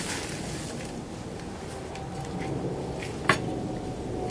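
Gloved hands working loose potting soil in a plastic pot, a soft gritty rustle, with one sharp click a little over three seconds in.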